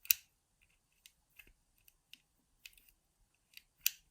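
Pick wire and tension tool working the levers inside a 5-lever mortice lock: scattered small metallic clicks and ticks as the levers are lifted, with one sharper click just after the start and another near the end.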